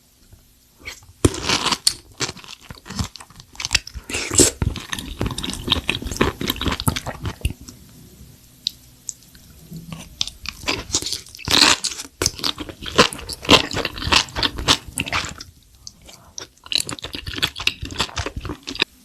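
Close-miked crunchy chewing: a person biting and chewing crisp food in dense runs of crackles, pausing briefly near the end before chewing again.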